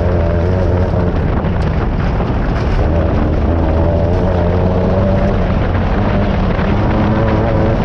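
Class 9 off-road race buggy's air-cooled VW engine running hard at speed, heard from inside the car, its pitch wavering up and down with the throttle.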